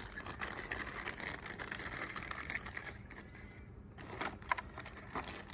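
A small boxed kit being opened and its packaging handled, giving a run of soft irregular clicks, scrapes and rustles.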